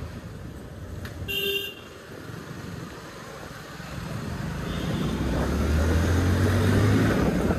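Motorcycle riding with engine, wind and road noise. A short horn beep comes about a second and a half in. From about four seconds in the engine and wind noise grow louder as the bike speeds up.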